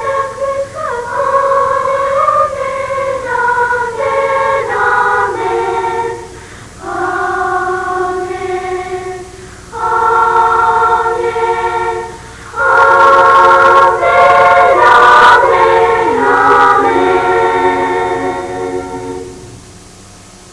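School children's choir singing a Christmas piece in long held phrases with short breaks between them, its last phrase ending shortly before the end.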